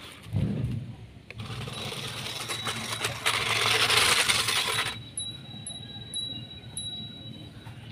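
Toy RC off-road truck driving across loose gravel, its tyres crunching over the stones and its small electric motor running, loudest a little past the middle. From about five seconds in, a steady high-pitched tone with faint regular ticks about twice a second.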